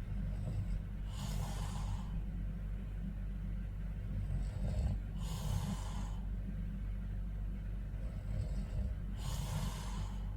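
A man snoring in his sleep: three noisy, hissy breaths about four seconds apart, over a steady low hum.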